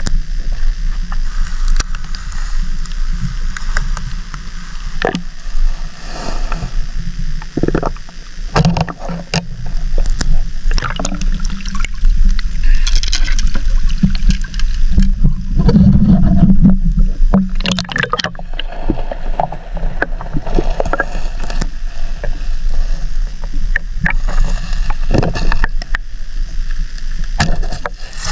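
Shallow seawater sloshing and gurgling, with many sharp knocks and clicks throughout; it grows louder around the middle.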